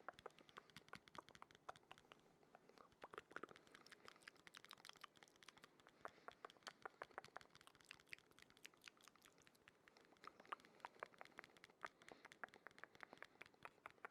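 Close-miked ASMR trigger sounds: a quiet, irregular run of soft clicks and taps, several a second.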